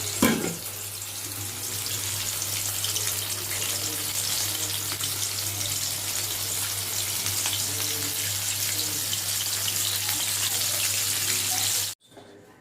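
Chicken leg pieces frying in hot oil, a steady sizzle, with a single knock right at the start; the sizzle cuts off suddenly shortly before the end.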